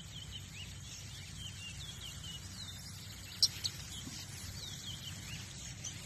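Caged songbirds singing: a steady stream of quick, high chirps and short whistled glides, with one sharper, louder note about three and a half seconds in.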